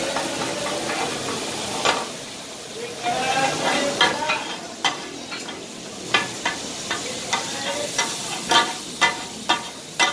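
Two steel blades clattering and scraping on a flat iron griddle as offal is chopped for kata-kat, the rapid blade-on-griddle clatter the dish is named after, over a steady sizzle of meat frying in butter. The sharp strikes come thickest in the second half.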